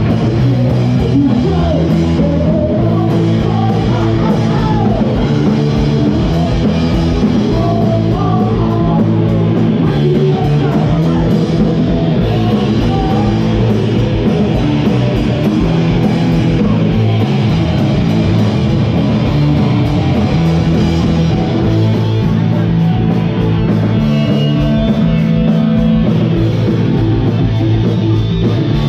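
A rock band playing loud and live: electric guitars through amplifiers, bass guitar and a drum kit in a continuous, even-level song.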